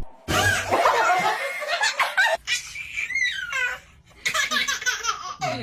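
A person laughing hard in several bursts, with short pauses between them.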